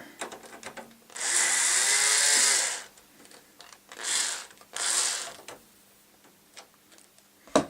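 Electric screwdriver running in one burst of about a second and a half, then two short bursts, driving self-tapping screws into a case fan's mounting holes, where the screw resists and does not go in easily.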